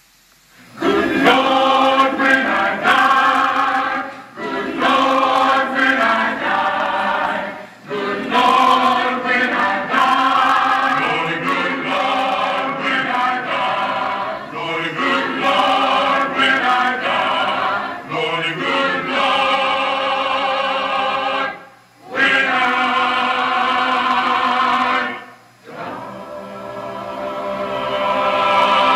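Mixed choir singing in full harmony, in phrases broken by short pauses and swelling louder near the end.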